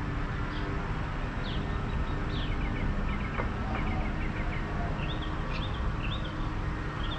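Birds chirping in quick runs of short falling notes over a steady low rumble of street traffic.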